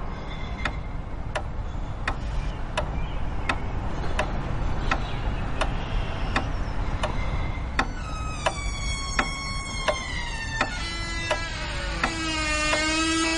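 Background film score: a ticking pulse of about three clicks every two seconds over a low steady drone. About eight seconds in, layered held tones come in and slowly slide in pitch, with a low held note added near the end.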